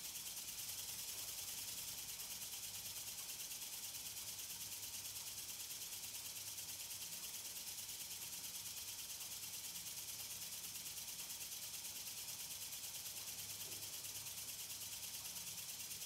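Steady high hiss with a faint low hum underneath, unchanging throughout.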